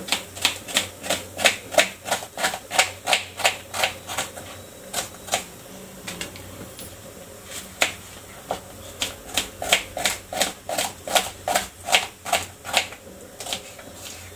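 Kitchen knife slicing an onion on a plastic cutting board: quick, even chops at about four a second. The chopping pauses for a few seconds midway, then starts again.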